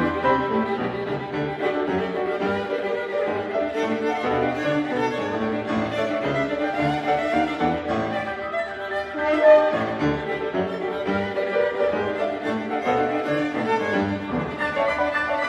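Chamber trio of viola, French horn and piano playing a contemporary classical piece, the viola bowing over sustained horn notes and piano, with one brief loud accent a little past halfway.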